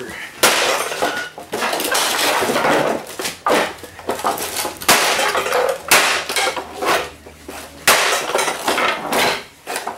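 Repeated heavy blows smashing apart the plastic and metal housing of a Toro Power Curve 1800 electric snow blower, about seven strikes roughly a second or so apart, each followed by clattering and rattling of broken pieces.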